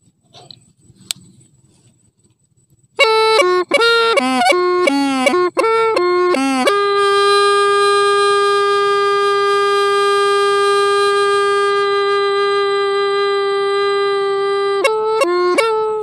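Hmong raj bamboo pipe played solo: after a quiet pause of about three seconds, a quick run of notes stepping up and down, then one long held note for about eight seconds, then more quick notes near the end.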